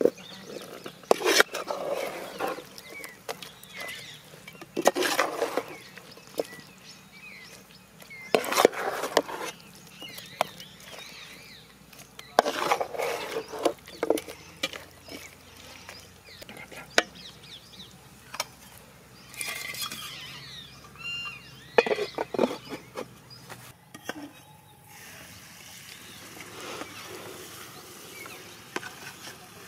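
Metal ladle scraping and clinking against a pan of frying chicken as it is stirred, a stroke every few seconds.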